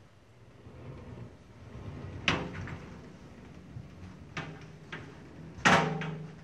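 Frameless glass panels of a sliding glazing system moving along their aluminium floor track, with sharp knocks as panels and fittings meet: one about two seconds in, two lighter ones a couple of seconds later, and the loudest clack near the end, which rings briefly.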